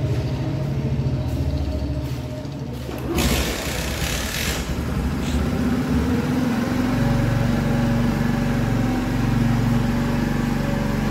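Bajaj Platina 110 motorcycle's single-cylinder engine idling, with a short burst of louder noise about three seconds in. From about seven seconds in the engine settles into a steady, even idle.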